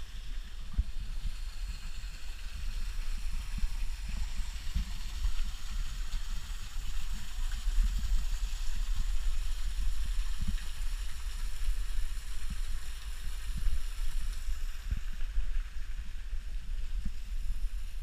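Low rumble and irregular thumps from a camera being carried while walking, with a steady high hiss above them.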